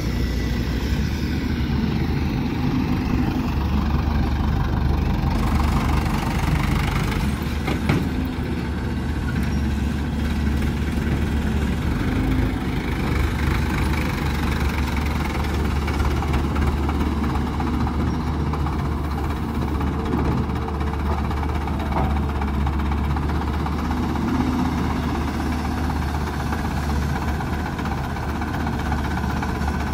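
Diesel engines of a Mahindra tractor and a Caterpillar 320D3 GC tracked excavator running steadily, with a single sharp knock about eight seconds in.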